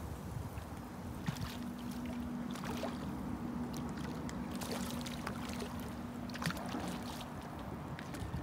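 Hooked common carp splashing and churning the surface close in as it is played toward the landing net, with several sharper splashes over a steady bed of wind on the microphone.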